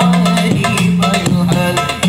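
Sholawat music played loud through a sound system: hand-drum percussion over a pulsing bass note, with a wavering melody line on top.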